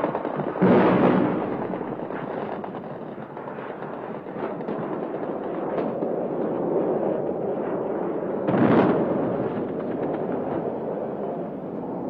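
Battle sounds of shelling and gunfire: a continuous rumbling noise with scattered sharp cracks, and two heavy explosions, one about a second in and one about three-quarters of the way through.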